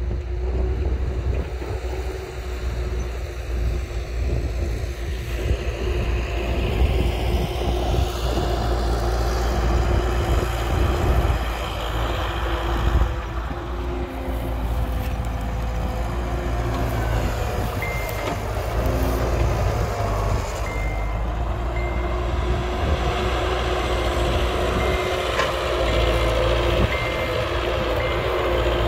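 Diesel engines of heavy earthmoving machinery, a dump truck and an excavator, running steadily with a low rumble. About two-thirds of the way in, a high-pitched reversing alarm starts beeping about once a second.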